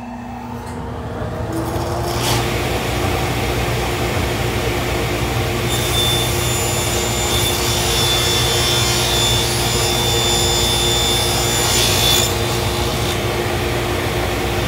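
Delta 36-725 T2 table saw running with a steady motor hum. From about six seconds in until about twelve, its blade rips through a sheet of MDF, adding a high, hissing sawing sound over the hum.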